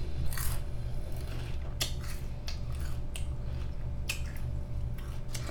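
A person chewing Lay's potato chips with their mouth closed, with irregular soft crunches every second or so over a steady low hum.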